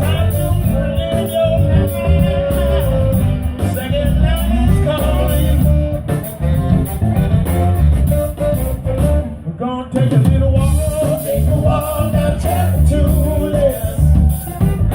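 Live blues band playing an instrumental passage, with a sustained, wavering lead melody over guitar, bass and drums.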